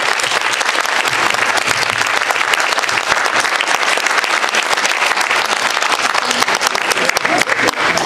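Audience applauding: steady, dense clapping from a seated crowd at the close of a speech.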